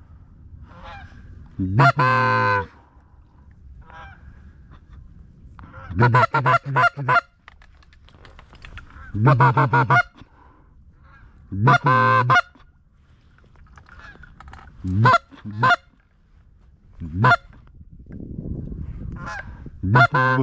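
A hand-blown waterfowl call sounds loud and close in separate bursts. There is a long drawn call about two seconds in, then quick runs of short quacking notes, another long call, and a few single notes near the end, a calling sequence meant to draw passing ducks in.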